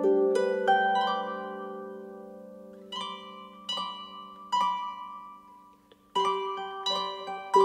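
Background music of a plucked-string instrument: notes ring out and fade, then come one at a time, pause briefly, and the playing picks up again near the end.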